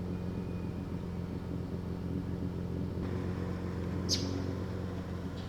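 Steady low hum of a car engine running, with a brief high chirp about four seconds in.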